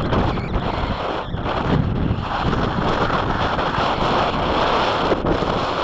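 Strong, gusty wind buffeting the microphone: a loud, churning rumble that rises and falls.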